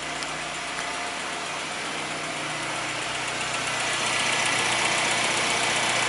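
Car engine idling steadily, with a hiss that grows louder about two-thirds of the way through.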